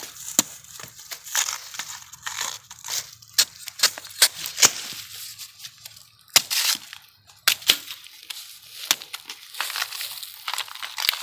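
Husk sheaths being torn and stripped off fresh bamboo shoots by hand, a dense, irregular run of sharp snaps and crackling from the stiff husks and dry bamboo litter.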